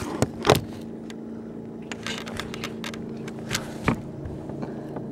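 Motorboat engine idling with a steady low hum, with a couple of sharp knocks and rattles.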